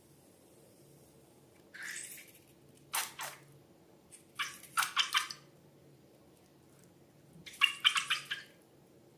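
Slime being handled, giving four short bursts of wet, sticky crackling and popping, the last two a quick run of clicks.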